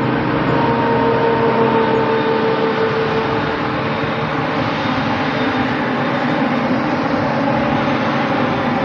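Claas Jaguar self-propelled forage harvester running at work, its engine and chopping drum making a loud, steady mechanical noise. A steady whine over it fades out about halfway through.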